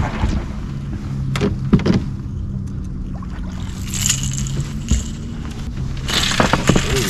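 A blue catfish being landed into a boat: splashing as it is lifted from the water with a lip grip about four seconds in, then scuffling and knocks of handling, over a steady low hum.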